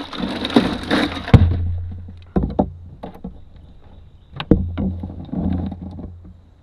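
Hard plastic cooler lid being handled with a rustle, then shut with a loud hollow thump about a second and a half in. Several lighter knocks and clacks follow, with one sharp knock about four and a half seconds in.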